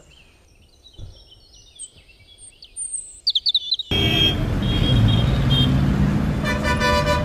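Birds chirping softly, then about four seconds in, loud street traffic noise starts suddenly, with a vehicle horn honking briefly near the end.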